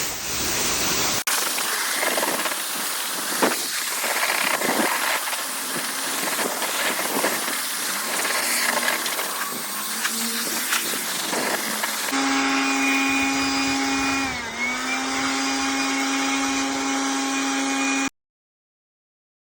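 High-pressure water spray hissing for about twelve seconds, as when an air conditioner is jet-washed. Then a steady machine hum, which dips briefly in pitch once, until everything cuts off suddenly near the end.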